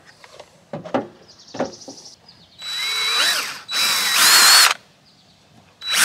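Cordless DeWalt drill boring a hole through a black plastic trim panel. It runs in two bursts of about a second each, starting two and a half seconds in, with a high whine and a pitch that wavers with the trigger, and starts again just at the end. Light handling clicks come before.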